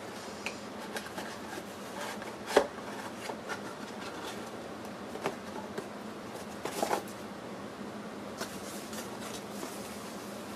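Cardboard boxes and packing paper being handled: scattered soft knocks and rustles, the loudest knock about two and a half seconds in, over a faint steady hum.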